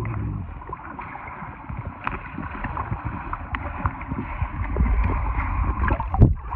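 Muffled underwater sound from a phone submerged in a swimming pool: a steady rumble of moving water with small bubble pops. A sudden splash about six seconds in as the phone nears the surface.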